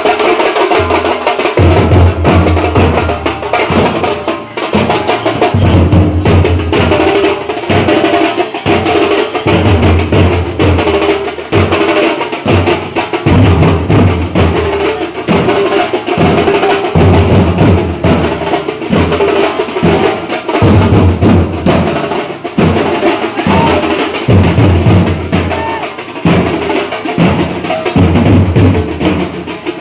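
Temple festival percussion band: loud, dense drumming with fast rolls that keeps going without a break, with pitched instruments playing underneath.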